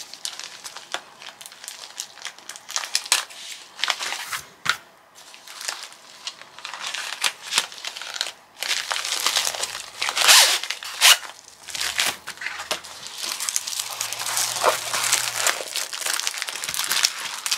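Plastic packaging of a cross-stitch kit crinkling and rustling as it is handled and unpacked, with irregular crackles that are loudest about ten seconds in.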